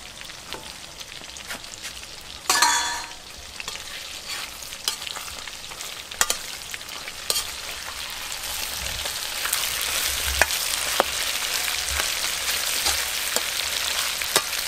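Pork ribs sizzling in a steel wok, stirred with a metal spatula that clicks and scrapes against the pan; the sizzle grows louder and denser in the second half. A single ringing metal clang about two and a half seconds in.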